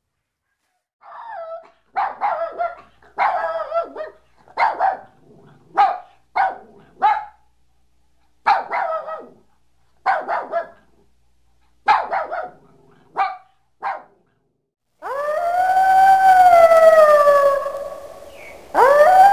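A puppy barking and yipping in a string of short, high calls, then a wolf howling: one long howl that sinks slowly in pitch, and a second howl beginning near the end.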